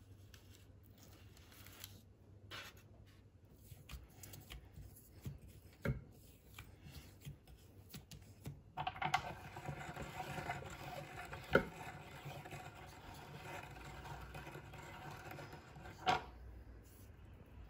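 Light taps and rustles of dough strips being handled and laid on parchment paper, then, about halfway through, a hand-cranked Reliance metal meat grinder being turned for about seven seconds: a steady grinding with a few clicks as it presses biscuit dough through its shaping plate.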